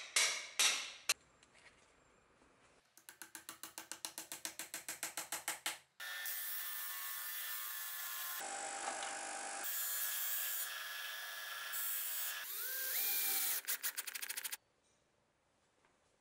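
A few sharp hammer blows, then after a pause a quick run of taps at about five a second. Then a bench combination belt-and-disc sander runs for about eight seconds with a metal piece held against its disc, with a brief rising whine near the end, and cuts off suddenly.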